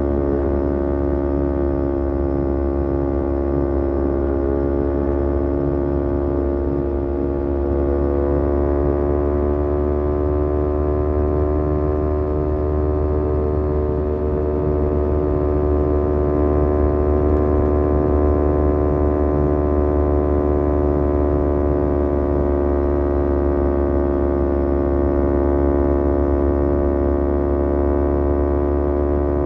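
Kawasaki Z250 parallel-twin engine breathing through an aftermarket SeaPro muffler, running at steady cruising revs. The exhaust note dips slightly about a quarter of the way in, then climbs gently and holds.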